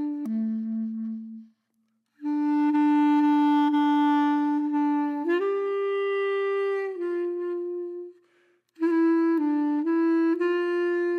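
Background film score: a slow solo melody on a wind instrument, mostly long held notes, with two short breaks about one and a half seconds and eight seconds in.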